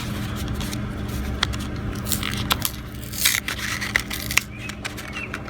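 Bulb packaging being opened by hand: crinkling and tearing of plastic and cardboard with scattered sharp clicks, loudest about three seconds in.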